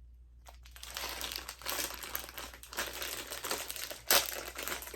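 Snack wrapper crinkling as it is handled and opened, with one sharp, loud crackle about four seconds in.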